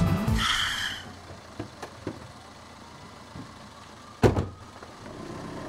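Music stops about half a second in, followed by a short hiss. Then a quiet stretch with a few faint clicks, and a single loud thump about four seconds in.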